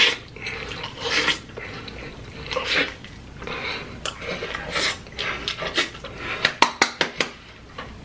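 A person chewing and slurping a mouthful of cheesy stuffed deep-dish pizza: irregular wet mouth sounds, with a quick run of sharp clicks about six and a half seconds in.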